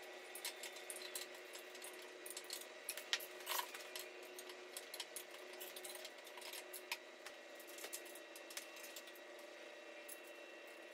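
Faint metallic clicks and taps of hand work on an LS V8 engine block during a camshaft swap, the cam being drawn out and a new one slid in, over a steady low hum of shop equipment.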